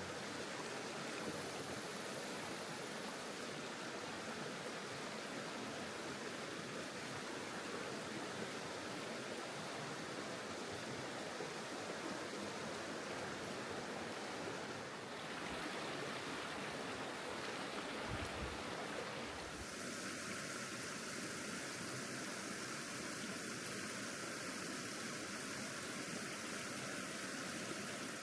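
River water running steadily, a constant even rushing; the tone of it shifts slightly about two-thirds of the way in.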